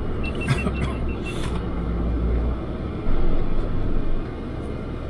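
GMC Sierra AT4X pickup crawling down a rocky trail in four-low, heard from inside the cab: a low steady rumble from its 6.2-litre V8 and drivetrain, with knocks and clunks as the tyres and suspension go over rocks. A quick run of high beeps sounds about half a second in.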